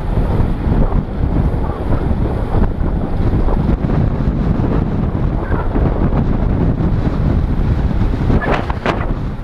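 Wind buffeting the microphone of a helmet-mounted GoPro in an open skeleton housing on a bicycle moving at race speed, a loud, steady, low rumble. Two brief sharper sounds near the end.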